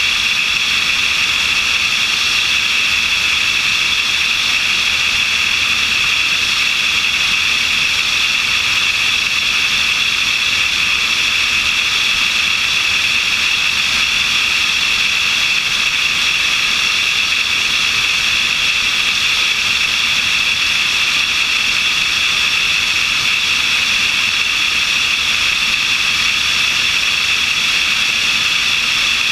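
Steady rush of airflow over a wing-mounted camera, with the drone of a light aircraft's engine and propeller in level flight.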